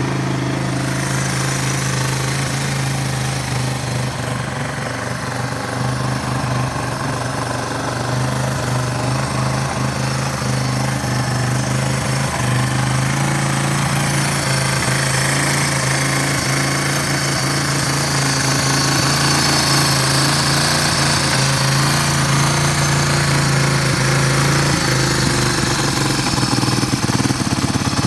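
Yamaha Serow 225's air-cooled single-cylinder four-stroke engine idling steadily, with no abnormal noises, as the seller states.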